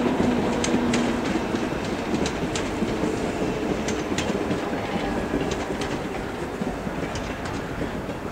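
Passenger train coaches rolling past, their wheels clicking over rail joints in pairs about every second and a half over a steady rumble. A hum fades out about a second in, and the whole sound slowly grows quieter.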